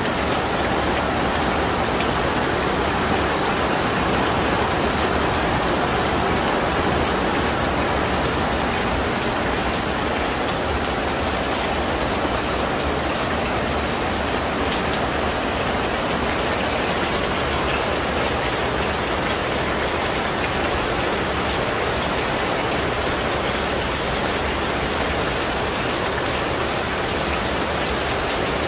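Heavy rain falling steadily onto wet paving and courtyard plants, an even, unbroken hiss.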